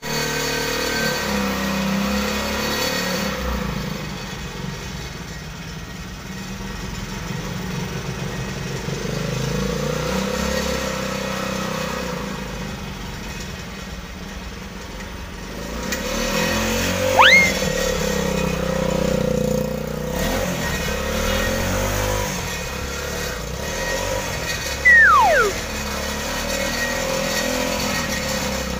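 Homemade mini tractor's small engine running as it is driven slowly, its level rising and falling. Two brief, sharp whistle-like glides cut through it: one rising about two-thirds of the way through, one falling near the end.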